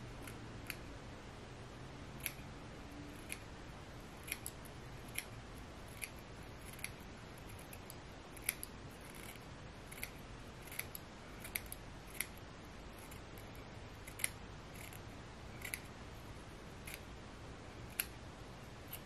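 Small scissors snipping excess lace from a lace front wig along the hairline: quiet, sharp snips at an uneven pace, roughly one a second.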